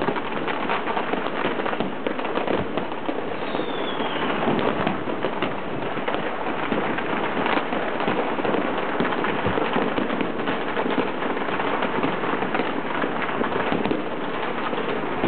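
Fireworks and firecrackers going off all over the city at once: a dense, steady mass of overlapping bangs and crackling, with a falling whistle about four seconds in.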